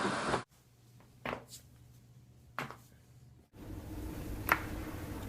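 Short, sharp pops of spinal joints cracking during neck and back adjustments: two in a quiet stretch near the middle and a louder one about a second from the end. The room sound changes abruptly between them.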